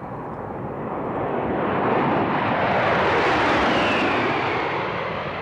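Four-ship formation of A-10 Thunderbolt II jets flying past. The rush of their TF34 turbofan engines swells to a peak about three seconds in and then fades, with a falling whine as they go by.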